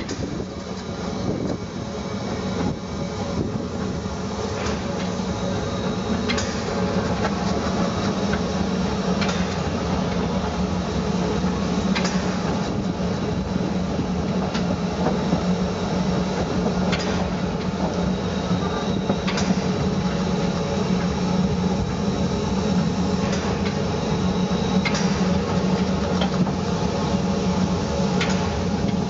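Steam locomotive 99 236, a Harz narrow-gauge 2-10-2 tank engine of DR class 99.23–24, with its machinery running: a steady hum and hiss, broken by a sharp click every few seconds.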